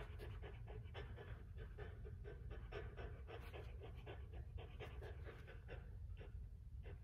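Chow Chow dog panting with rapid, even breaths, about four a second.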